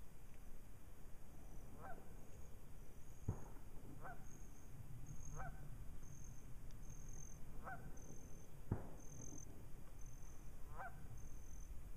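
Geese honking, single short calls a couple of seconds apart, over a low rumble and a faint high chirp that repeats under a second apart. Two sharp knocks stand out, about three and nine seconds in.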